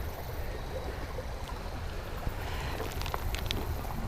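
Creek water running and lapping around a wader, over a steady low wind rumble on the microphone, with a few faint ticks about three seconds in.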